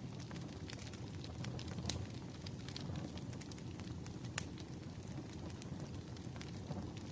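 Wood fire burning: a steady low rumble of flames with irregular sharp crackles and pops of burning firewood, a couple of them louder, about two and four seconds in.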